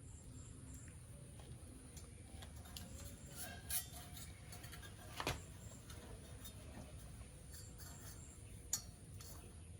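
Scattered light clicks and clinks, three of them a little louder, over a faint low rumble.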